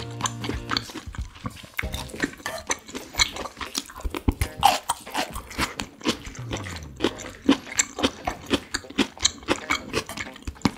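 Close-miked chewing of a mouthful of chop steak: many quick wet mouth clicks and smacks as the beef is chewed.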